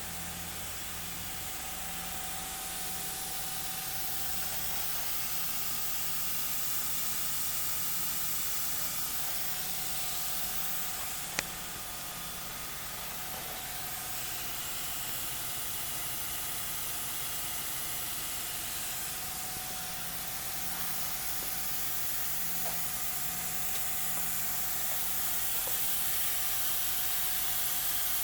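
Steady hiss with a faint steady hum beneath it, and a single sharp click about eleven seconds in.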